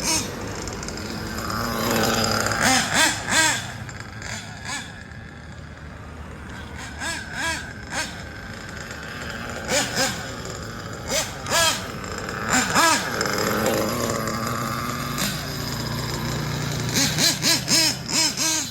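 Nitro glow engine of a Kyosho Inferno NEO ST 3.0 RC truggy running, its pitch swelling and falling repeatedly as it revs up and backs off. Several clusters of sharp rapid clicks come through on top, about three seconds in, around ten to thirteen seconds in, and near the end.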